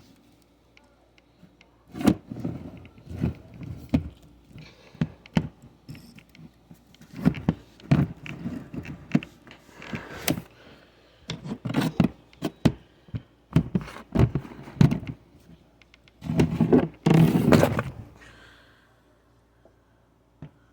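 LCN hydraulic door closer being worked by hand: a run of metal clunks, knocks and scrapes as its arm is swung and let sweep shut, with a longer scraping stretch about three-quarters of the way through.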